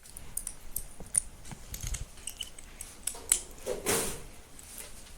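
Handcuffs being unlocked and taken off: scattered small metallic clicks and jingles, with clothing rustle and a longer rustle about four seconds in.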